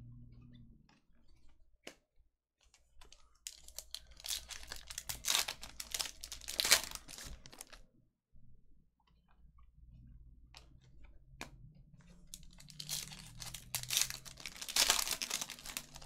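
Trading-card pack wrapper crinkling and tearing open, in two bouts of several seconds each with a quieter spell between.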